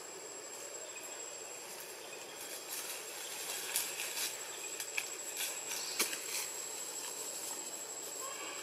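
Forest ambience with a steady, high-pitched insect whine, broken in the middle seconds by a few sharp clicks and crackles.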